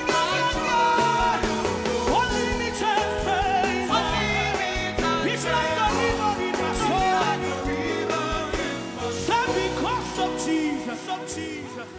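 Live Nigerian gospel band playing, with a woman singing lead through a microphone over bass guitar and drums, getting quieter near the end.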